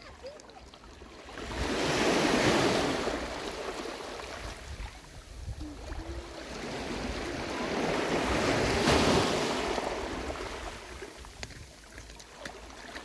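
Sea waves breaking, two surges swelling and fading about six seconds apart, with wind buffeting the microphone.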